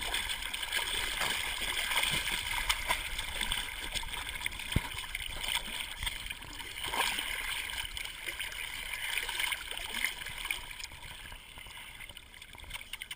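Water sloshing and splashing close to the microphone as a Swiss mountain dog paddles through a lake, with irregular small splashes and a steady gurgle of churned water.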